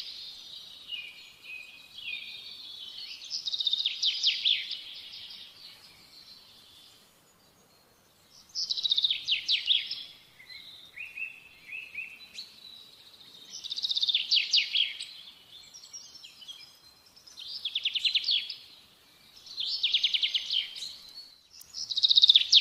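A small bird singing: short, high, rapidly trilled phrases, about one every two to four seconds.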